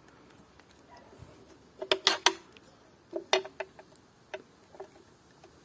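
Light clicks and taps of a spark plug and its rubber plug cap being handled: a quick cluster of three about two seconds in, a single sharper click a second later, then a few fainter ticks.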